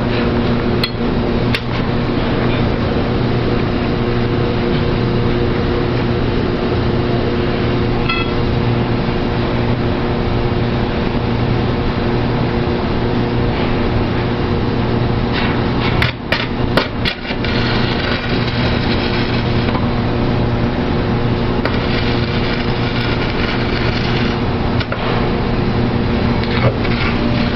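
Electric stick (electrode) welding arc crackling and sizzling steadily over the low, steady hum of the welding machine. The arc breaks off briefly a few times about two-thirds of the way through, then carries on.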